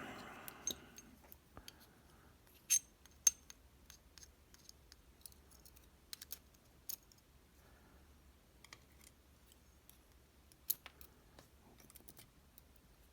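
Faint, scattered metallic clicks and taps of small lock pins and parts being handled while a disk-and-slider lock is taken apart, with a few sharper clicks about 3 s in and near 11 s.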